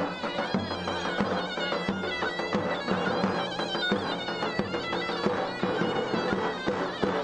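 Traditional dance music led by a loud, reedy folk wind instrument playing a sustained, ornamented melody, with a steady beat underneath.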